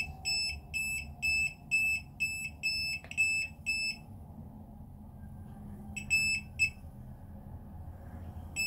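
YATO YT-28313 inductive non-contact voltage tester beeping, a high-pitched beep about twice a second, as it picks up a live cable hidden in the wall. The beeping stops about four seconds in, comes back as three quicker beeps a couple of seconds later, and starts again at the end as the tester finds the cable once more.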